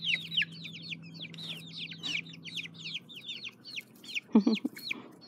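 Young chicks peeping over and over, a quick string of short, high, falling peeps, several a second. A brief, louder, lower-pitched sound cuts in about four seconds in.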